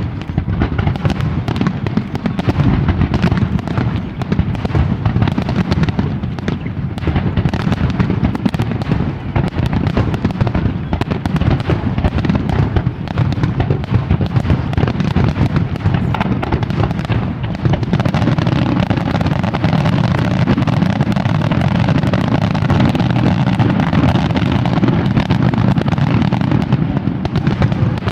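Aerial fireworks going off in a rapid, continuous barrage of overlapping bangs and crackles, growing steadier and denser in the second half.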